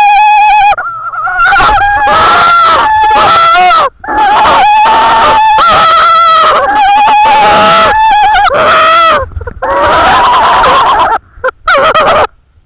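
Owls calling at the nest: a series of loud, harsh, wavering calls, each lasting one to two seconds with short breaks between, ending in a couple of short calls.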